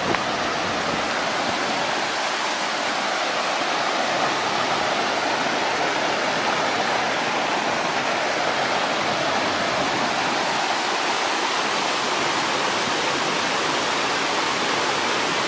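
Waterfall on a small creek rushing steadily, a dense, even hiss of falling water with no let-up.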